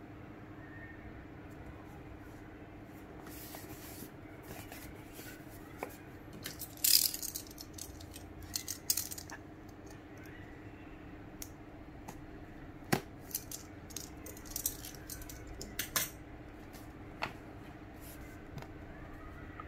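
Cardboard phone box being handled and its seal sticker slit with a utility knife: scattered taps, clicks and short scrapes, the loudest a scraping burst about a third of the way in and a sharp click near the middle, over a steady low hum.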